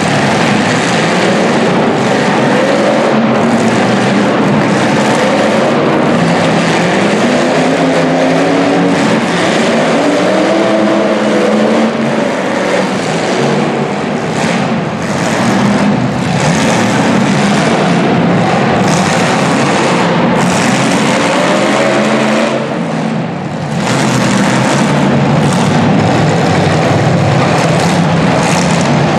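Engines of several full-size demolition derby cars revving hard at once, their pitches rising and falling over one another in a continuous din that briefly drops back about two-thirds of the way through.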